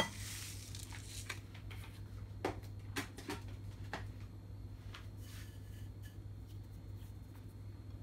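A sharp click, then about a second of hiss, then a scattering of light clicks and taps, over a steady low hum.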